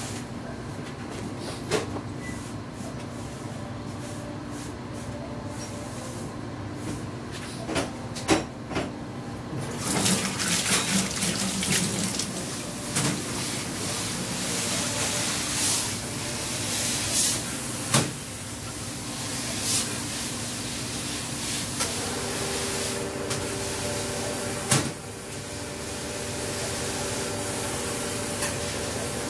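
Liquid sloshing and splashing in a large metal stockpot over a steady kitchen hum, with a few sharp clanks. The splashing is loudest for a stretch in the middle, and a few steady tones join the hum near the end.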